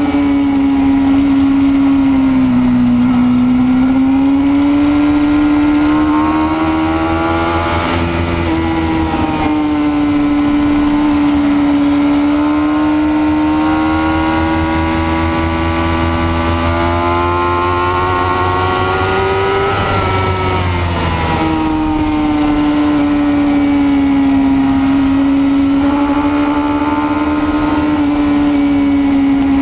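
Racing motorcycle engine heard from onboard at high revs, its note climbing slowly through a long stretch, dropping sharply about twenty seconds in as the throttle comes off, then picking up and holding steady. Wind rush runs underneath.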